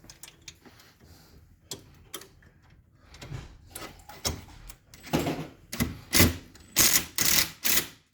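Sheet-metal oven trim being bent and pushed into place: scattered light clicks, then from about five seconds in a run of louder knocks and short scrapes.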